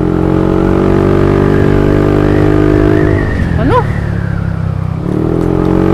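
Yamaha NMAX 155 scooter's single-cylinder engine running at a steady cruising speed, dropping off a little past halfway as the throttle eases, then picking up again and rising near the end. A short rising tone sounds just after the drop.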